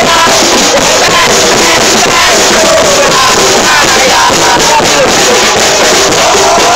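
Stadium crowd of football supporters singing a chant together, loud and unbroken.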